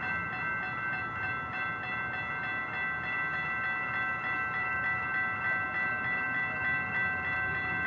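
Railroad grade-crossing warning bell ringing with quick, even strikes, a sign that a train is approaching, over a low rumble.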